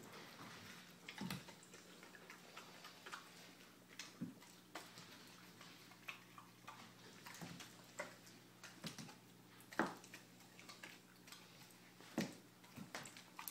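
A puppy chewing on a raw chicken leg and thigh, bone and all: irregular sharp clicks and crunches of teeth on bone, with the meat knocking against the hardwood floor, the loudest crack about ten seconds in.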